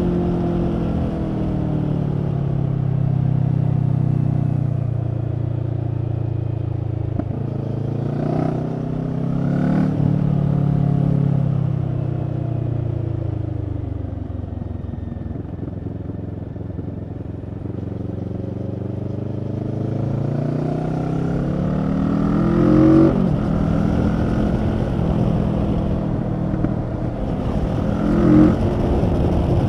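Kawasaki Z650's parallel-twin engine through a Leo Vince EVO carbon exhaust, heard from the rider's seat. Its revs fall steadily as the bike slows for a bend, with two short blips partway through, then climb again as it accelerates, with two brief peaks in the second half.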